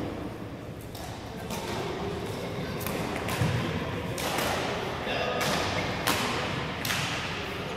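Badminton rally: sharp racket hits on the shuttlecock about once a second, with players' footfalls on the court, echoing in the sports hall.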